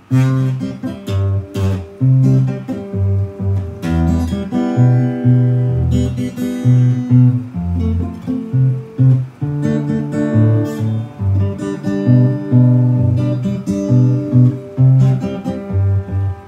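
Acoustic guitar playing a bachata introduction: picked melody notes and strummed chords over low bass notes.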